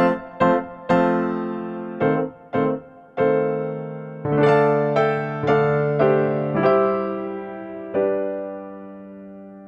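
Piano music: a run of struck chords, each dying away, closing on a long held chord that fades out near the end.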